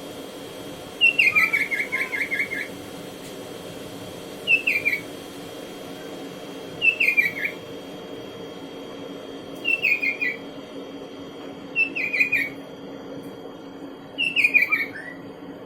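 Sooty-headed bulbul (kutilang) singing: six short phrases of quick descending whistled notes, a few seconds apart, over a faint steady hum.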